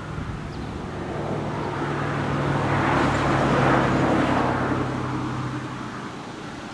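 A motor vehicle passing by: engine hum and tyre noise swell to a peak midway and fade away again.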